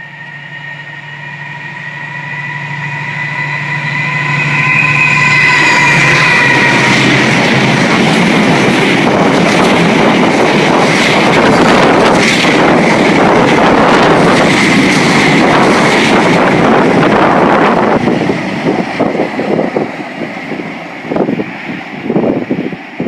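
Diesel-hauled freight train of tank wagons passing close by. The locomotive approaches with a low engine hum and steady high tones, which shift in pitch as it passes about five or six seconds in. After that comes a loud, steady rumble with rapid rail clicking as the wagons go by, turning uneven and fluctuating after about eighteen seconds as the train moves off.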